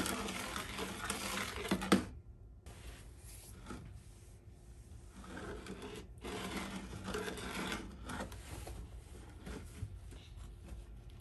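Plastic spoon stirring and scraping a thick candy slime mixture in a small plastic tub, in two spells: busy scraping that stops with a sharp knock about two seconds in, then fainter stirring, and a second spell of scraping from about five to eight seconds in.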